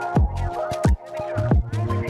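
Electronic dance music with a steady kick-drum beat and synth tones.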